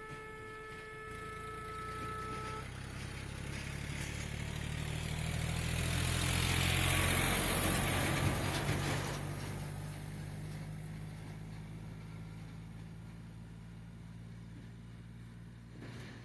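A horn holds one steady note and cuts off about two and a half seconds in. Then a vehicle's engine rumble swells, passes closest around seven to eight seconds in with a rush of noise, and fades away.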